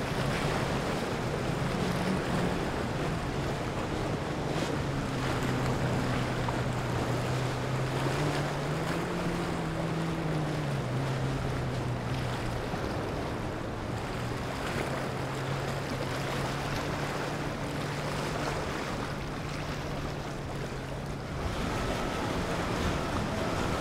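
Wajer 55 motor yacht running on its three Volvo Penta IPS 600 diesels: a steady low engine drone over the rush of wake water and wind, its pitch briefly rising and falling about nine seconds in. Near the end a different, higher steady engine tone takes over.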